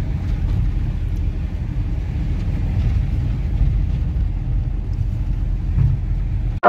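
Steady low rumble of a vehicle's engine and tyres on the road, heard from inside the cabin while driving.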